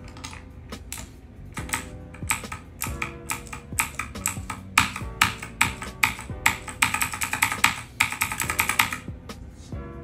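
Fast typing on a Royal Kludge RK84 mechanical keyboard fitted with blue clicky switches and modded with clipped stabilizers, tape and foam: a rapid run of sharp key clicks that gets denser in the second half. Background music plays underneath.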